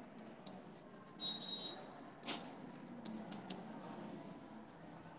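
Chalk scratching and tapping on a blackboard as a word is written, in a string of short strokes with the sharpest one about two seconds in. A brief high-pitched squeak sounds about a second in.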